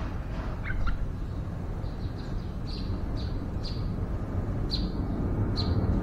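Yellow-vented bulbul calling: a quick two-note call about a second in, then a run of short, high, downward-flicking notes repeated every half second or so. A steady low rumble runs underneath.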